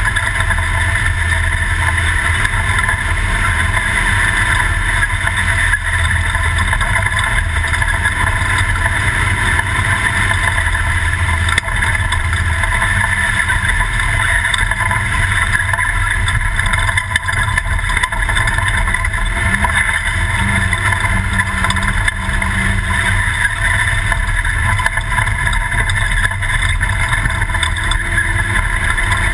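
Toyota desert race truck's engine running steadily under way, mixed with constant road and wind noise.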